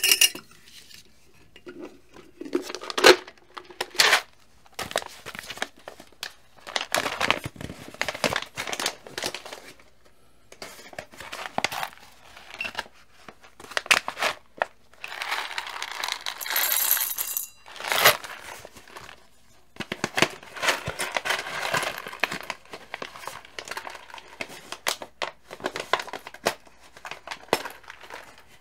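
Crinkling of a coffee bag being handled, with sharp clicks and taps. Near the end, coffee beans drop into a stainless steel dosing cup with small hard clinks.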